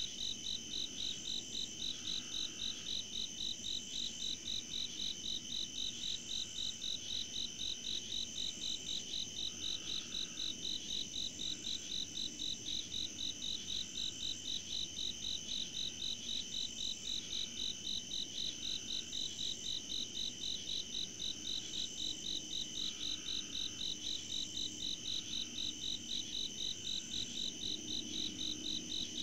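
Night insect chorus: crickets chirping in a steady pulse about three times a second, over the continuous high trilling of other insects.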